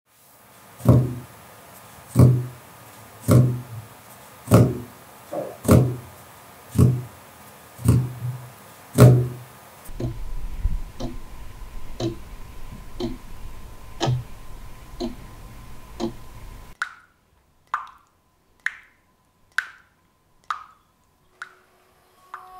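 A clock ticking about once a second. For the first ten seconds it comes as deep, heavy knocks, some of them doubled. After that it turns to lighter ticks over a low hum, and from about seventeen seconds in to sharp, single ticks with near silence between them.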